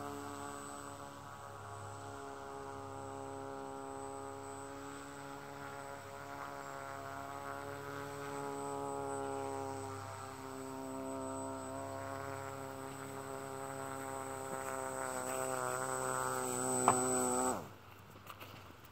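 Motor and air propeller of a small handmade radio-controlled fan boat running with a steady buzzing hum whose pitch wavers slightly. It grows louder toward the end and cuts off suddenly about a second before the end, just after a sharp click.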